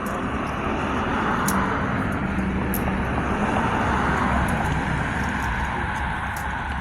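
Road traffic: a passing vehicle's engine and tyre noise swells to a peak about four seconds in and then fades.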